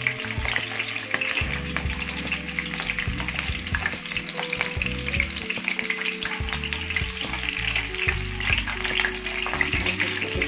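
Coated chicken wings shallow-frying in hot oil in a frying pan: a steady sizzle with a constant crackle of small pops.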